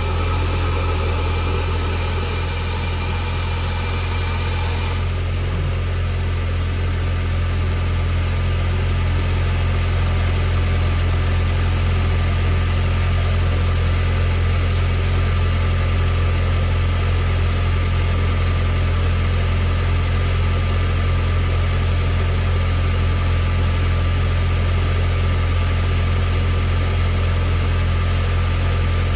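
VW GTI Mk8's turbocharged 2.0-litre four-cylinder engine idling steadily, running on a newly fitted CTS turbo inlet; a faint higher whine stops about five seconds in. The owner judges that it sounds good.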